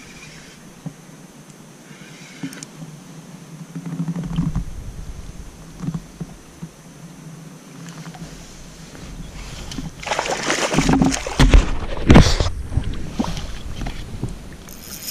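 A hooked fish splashing and thrashing at the water's surface beside a small inflatable boat, in a run of loud splashes about two-thirds of the way in, after a stretch of low rumble and a few small knocks while it is played on the rod.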